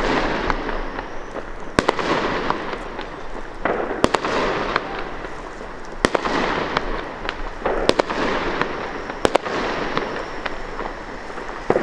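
Aerial fireworks going off again and again: a sharp bang every second or two, each followed by about a second of crackling.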